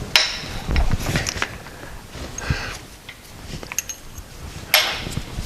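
Scattered clinks and knocks of metal parts and tools being handled on a workbench after the old bronze idler-arm bushes have been drifted out, with a short scraping rush near the end.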